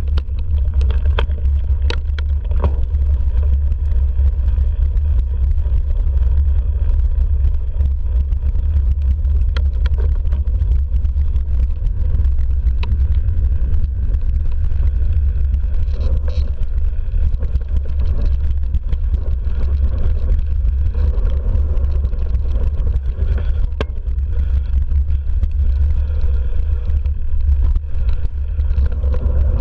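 Mountain bike descending a dirt trail, heard through the bike-mounted action camera: a heavy, steady rumble of wind and ride vibration on the microphone, with scattered knocks and rattles from the bike bouncing over bumps.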